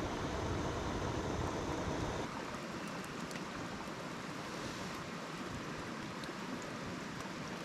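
Steady rushing outdoor noise with no clear single source. The low end drops away abruptly about two seconds in, and a few faint ticks follow.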